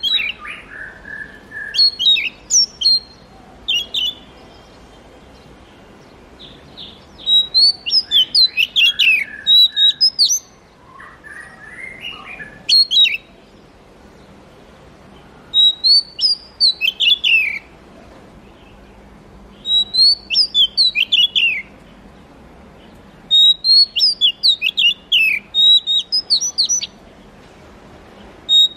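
Oriental magpie-robin singing: phrases of quick, varied whistled notes, many sliding downward, repeated every few seconds with short pauses between, and a few lower drawn-out whistles near the start and about eleven seconds in.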